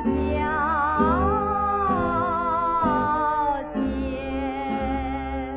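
Old recording of a Chinese popular song: a female singer holds long notes with a wide vibrato over a steady instrumental accompaniment, the sound cut off above the upper treble.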